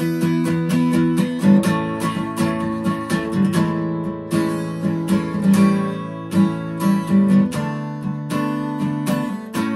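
Acoustic guitar played solo, chords strummed in a steady rhythm of sharp strokes.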